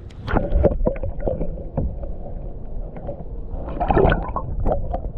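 Wind buffeting the microphone in a steady low rumble, with knocks and water sloshing around a kayak as a small largemouth bass is let back into the lake; a louder splash comes about four seconds in.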